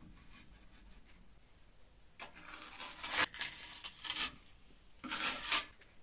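Firebricks scraping against one another as they are lifted off a brick furnace and stacked, three rough scrapes in the second half with a sharp knock about three seconds in.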